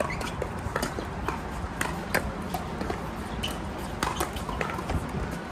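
Irregular hollow pops of pickleball paddles striking the plastic ball, with ball bounces on the hard courts, several a second from the surrounding courts, over a steady low rumble.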